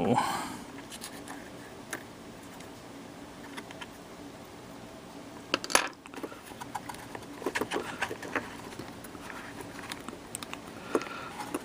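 Scattered small clicks and taps of parts being handled and fitted into a small radio's case, with one sharper click about six seconds in.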